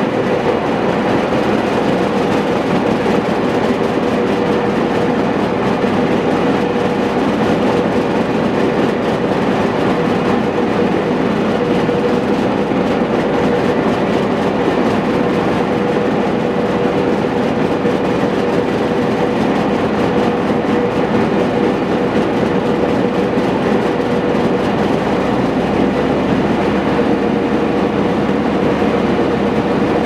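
International UD18 engine running steadily on diesel, driving a circular sawmill with its blade spinning: an even mechanical din with a steady held tone.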